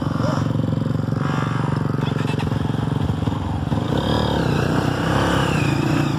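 Off-road trail motorcycle engines running and revving hard as riders climb a slippery muddy hill, with a rising, wavering rev about four seconds in.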